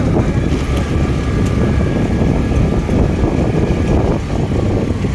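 Wind buffeting the microphone on a moving motor scooter, a loud, steady low rush mixed with the scooter's engine and road noise.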